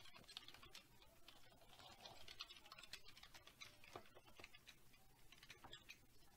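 Faint computer keyboard typing: irregular, soft key clicks.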